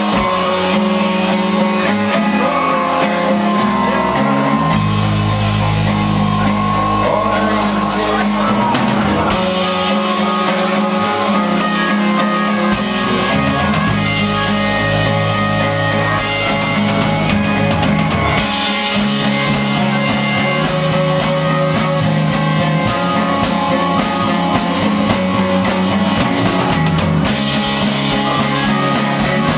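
Live rock band playing: drum kit, acoustic guitar, electric bass guitar and Nord Stage keyboard, with a steady drum beat and a moving bass line.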